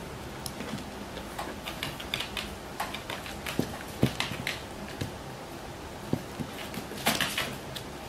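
Small dogs' claws clicking and tapping irregularly on a hard floor as they walk and play, with a quick flurry of clicks about seven seconds in.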